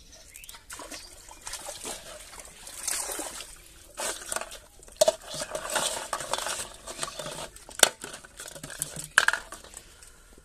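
Plastic bottles and caught catfish knocking and clattering in an aluminium basin, with water sloshing and splashing around it. Two sharp knocks stand out in the second half.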